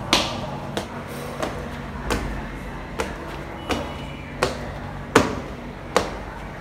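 Footsteps of flat ballet shoes climbing tiled stairs, a sharp tap on each step at about three steps every two seconds.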